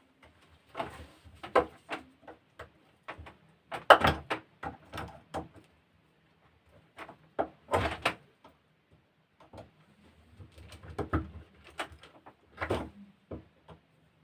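Screwdriver prying and scraping at a battery sprayer pump motor's bearing to work it out of its housing: irregular metal clicks, knocks and scrapes in several short clusters.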